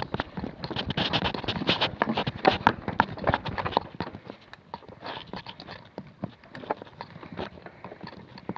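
Mountain bike rattling and knocking as it rolls slowly over a rocky dirt trail, tyres crunching on grit and stones, with irregular clicks. Busiest in the first half, thinning out as the bike comes to a stop.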